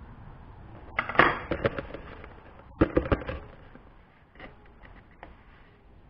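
Two short bursts of clattering knocks, about a second in and again near three seconds, then a few faint taps, as a steel ramming rod is put down on a wooden workbench and a plastic tub of sand is picked up and handled.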